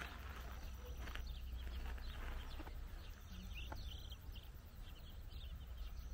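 Domestic chicks peeping, many short high peeps in quick succession, over a steady low rumble.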